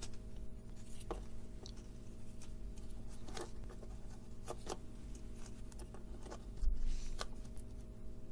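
Small scattered clicks, taps and scrapes of tools and electronic parts being handled on a workbench, over a steady electrical hum. A dull low bump about two-thirds of the way through.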